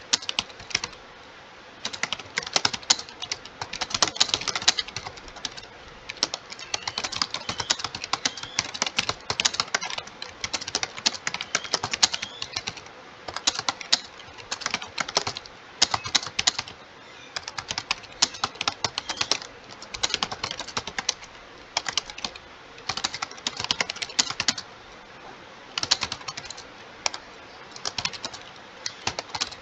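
Fast touch-typing on a computer keyboard: rapid key clicks in bursts of a second or two, broken by short pauses between words.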